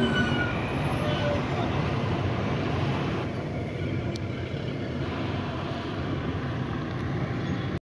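Steady engine and road noise heard from inside a car moving through busy city traffic. The sound dulls a little about three seconds in.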